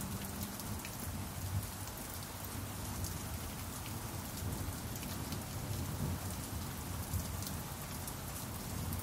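Steady rain falling, an even hiss with scattered sharp drop ticks. The last ringing pan drum note fades out just at the start.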